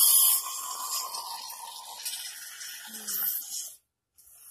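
Aerosol can of whipped cream sprayed straight into the mouth: a loud hiss for about half a second, then a weaker, uneven hiss that stops about three and a half seconds in, the can nearly empty.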